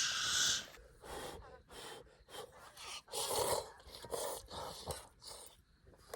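A man's loud breathy exhale, then a string of short breathy sounds about every half second.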